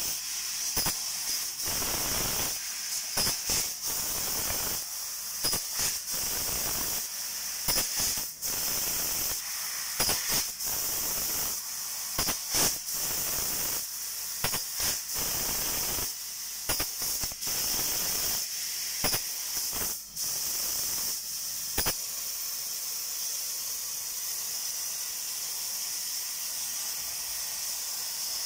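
6000 W IPG fiber laser cutting machine cutting 5 mm aluminium sheet: a steady high hiss of the assist gas at the cutting head, broken by many sharp snaps and pops for most of the time, settling into an even hiss for the last several seconds.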